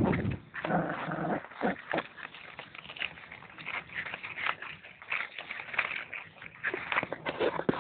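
Dogs making short vocal sounds in quick, uneven succession, with scuffling and tapping throughout.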